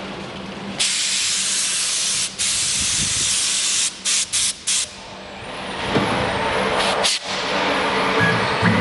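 1325 CNC wood router at work on a board. A loud hiss starts abruptly about a second in, stutters on and off several times around four seconds, then gives way to fuller machine running noise with a steady hum.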